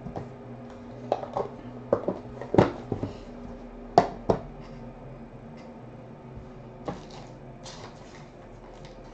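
Hands handling a small white cardboard card box: the lid sliding off and the box set down, a scattered string of light taps, knocks and scrapes, the sharpest about two and a half and four seconds in. A steady low electrical hum runs underneath.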